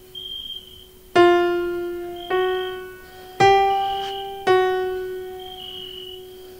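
Background piano music: four slow notes struck about a second apart, each ringing and fading, over a held low tone.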